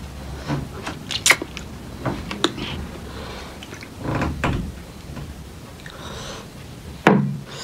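Close-miked eating sounds: wet mouth clicks and smacks of chewing, with a couple of short, audible breaths, one about four seconds in and one near the end, from a mouth burning on very spicy food.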